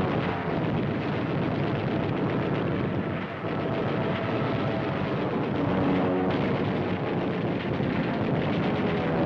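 Newsreel battle sound effects: a dense, steady roar of aircraft engine noise laced with rapid gunfire and explosions, with faint musical tones coming through about halfway and near the end.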